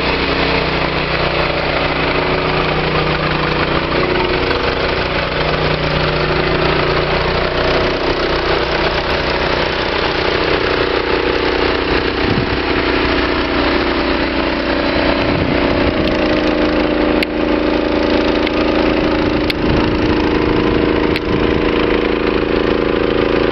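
Engine running steadily at idle, its pitch shifting slightly about two-thirds of the way through, with a few sharp knocks in the second half.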